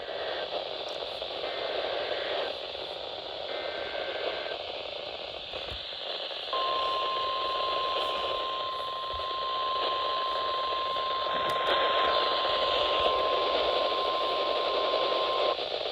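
Radio static with three faint short data bursts of warbling tones in the first few seconds, then a single steady high alert tone held for about nine seconds that cuts off. This is the SAME header and the 1050 Hz warning alarm tone of a NOAA Weather Radio broadcast, signalling that a warning message follows.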